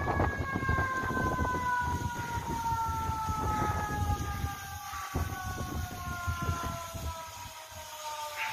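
Fire engine siren with one long, steady tone that falls slowly in pitch, over a low rumble.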